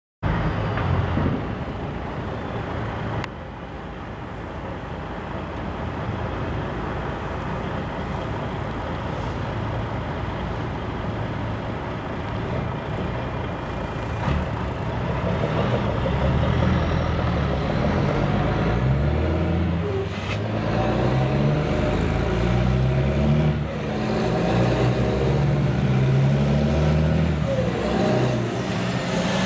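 DAF XF 105 trucks' diesel engines running through open exhaust pipes. From about halfway, the engine note steps up and down repeatedly as they are revved.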